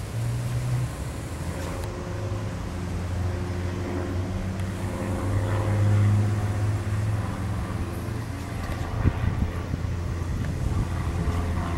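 Street traffic: a vehicle engine running with a steady low hum that swells and fades slightly, and one short sharp knock about nine seconds in.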